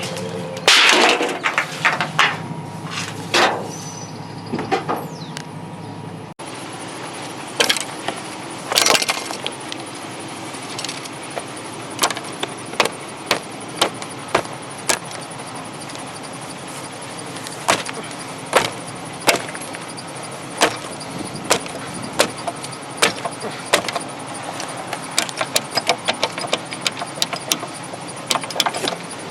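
Scrap items being picked up and handled: irregular sharp knocks and clatters throughout. A low steady hum runs under them for the first six seconds and stops suddenly.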